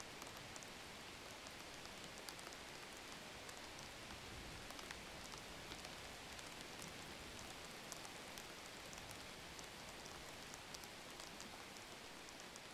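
Faint steady rain: an even hiss with many small scattered drop ticks.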